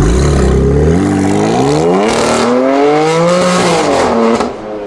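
Tuned BMW M4 coupe's twin-turbo straight-six accelerating away hard, the engine note climbing steadily in pitch, then dropping at an upshift about three and a half seconds in before climbing again and fading.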